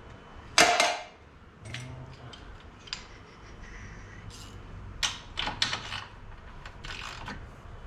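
Metal tools and bolts clinking and clanking as suspension bolts are worked out of a UTV trailing arm: one loud clank about half a second in, scattered clicks, then a cluster of clanks around five to six seconds.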